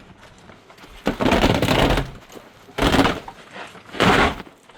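Timber being torn out and knocked loose during demolition: a long crashing clatter about a second in, then two shorter impacts about a second apart.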